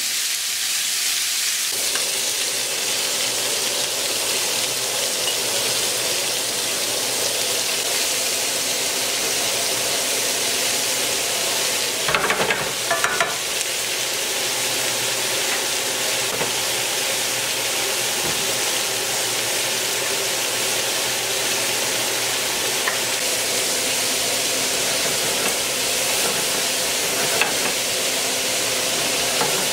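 Oil sizzling steadily in a skillet as seasoned fish fillets fry and julienned peppers, carrots and onions sauté and are stirred with a utensil. A brief clatter of the utensil against the pan comes about twelve seconds in.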